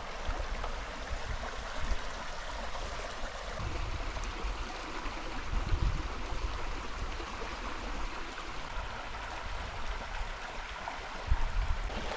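Small brook running steadily over its bed, a continuous burbling wash of water, with a few low thuds scattered through.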